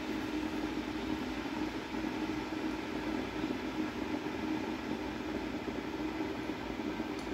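A steady low mechanical hum over a faint even hiss.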